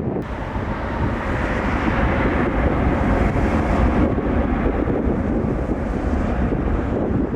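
Jet airliner engine noise mixed with wind buffeting the microphone, swelling a little about two to four seconds in.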